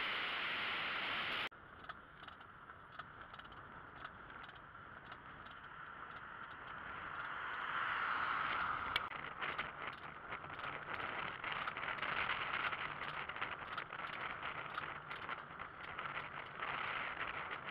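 Velomobile rolling along an asphalt road: a steady hiss of tyres and wind with many small rattles and clicks from the shell. The sound drops and changes suddenly about a second and a half in, then grows louder from about the middle on.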